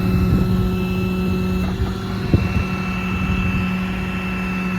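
Truck-mounted hydraulic crane in operation: a steady whine from the hydraulic system over the 6.7 L Cummins diesel engine running, as the crane is worked. A single knock a little past two seconds in.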